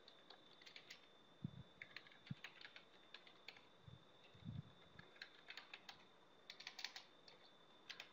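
Faint typing on a computer keyboard, keystrokes coming in irregular quick bursts, over a faint steady high-pitched tone.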